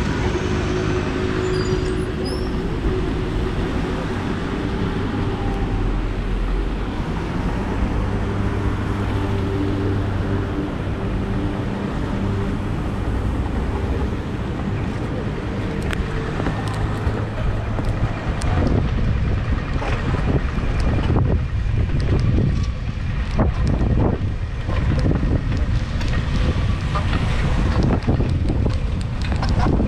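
Street traffic on a rain-wet road at an intersection: passing cars and scooters and a steady low engine hum. From about two-thirds of the way through, wind buffets the handlebar camera's microphone in irregular gusts as the bicycle gets moving.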